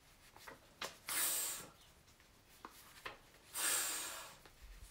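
A man sounding out voiceless phonics consonants: a short high hiss about a second in, then a longer breathy 'fff' near the end. Faint papery clicks from flashcards being flipped fall between them.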